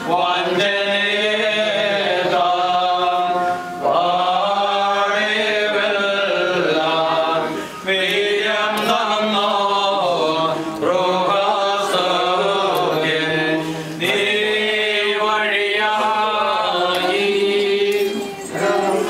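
Men's voices chanting a Malankara Orthodox liturgical hymn, sung in phrases of about three to four seconds with short breaks between them.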